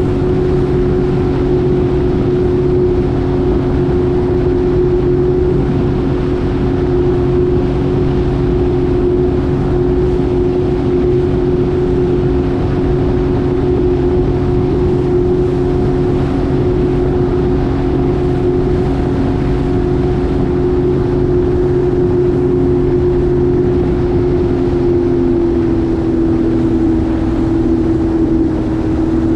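Jet ski engine running steadily at cruising speed, with water rushing beneath it. The engine's pitch drops slightly near the end as the throttle eases off.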